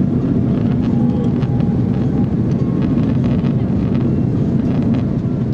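Steady roar of jet engines and airflow heard inside an airliner's cabin, with a few faint light rattles.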